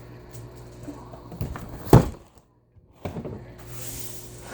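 A single sharp thud about two seconds in, then a few softer knocks, over a steady low hum.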